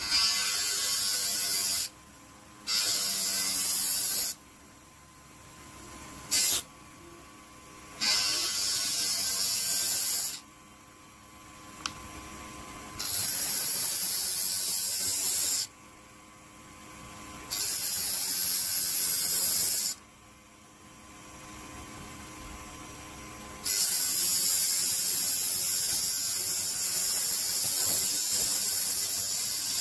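Homemade DC-motor mini disc sander with a block of wood pressed against its spinning sanding disc again and again: a loud sanding hiss during each pass of about two to three seconds, about seven passes in all. Between passes the motor runs freely with a faint steady hum.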